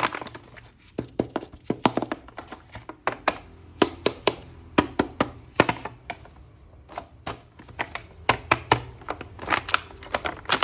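Irregular sharp plastic clicks and knocks, several a second with short pauses, from hands handling and unpacking a plastic action figure.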